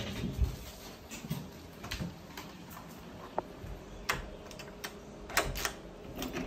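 Irregular light clicks and knocks from footsteps and handling, as a person walks up to a door and grips its metal lever handle near the end.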